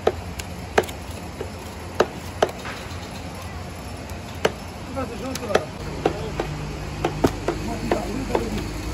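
Butcher's cleaver chopping buffalo meat and bone on a wooden block: sharp, irregular knocks about a second apart, coming closer together in the second half.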